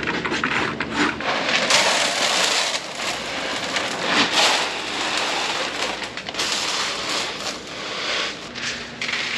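Grain being poured from a bucket into calves' feed tubs, a granular rushing patter that comes in several uneven pours.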